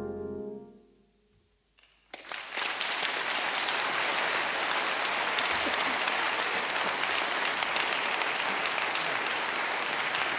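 The last held keyboard chord fades out within the first second. After a moment of near silence, a concert audience breaks into applause about two seconds in and keeps clapping steadily.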